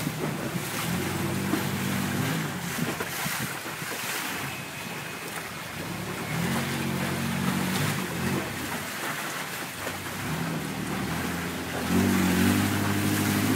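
Motorboat engine droning as the boat speeds along a canal, over a constant rush of wind on the microphone and water. The engine note comes up louder three times: about a second in, around six seconds in, and near the end.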